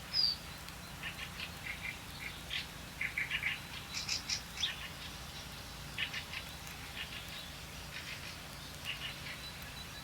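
Small songbirds chirping and twittering: many short, quick series of high notes coming every second or so, with a brief falling whistle right at the start.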